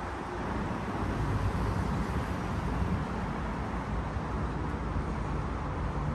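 Steady road traffic noise from vehicles passing on the bridge roadway beside the walkway.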